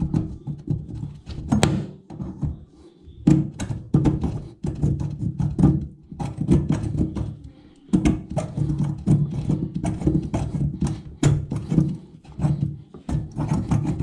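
Old paint being scraped and rubbed off a metal pipe by hand, in quick irregular strokes with short pauses between them.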